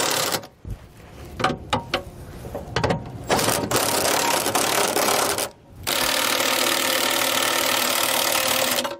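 Cordless impact wrench running on 5/8-inch bolts, snugging them down while the nuts are held with a wrench. It runs briefly at the start, gives a few short taps over the next three seconds, then runs in two long bursts with a short pause between them about halfway through.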